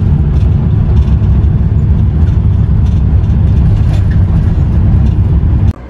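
Steady low rumble of a car's engine and tyres on the road, heard from inside the moving car's cabin; it cuts off suddenly near the end.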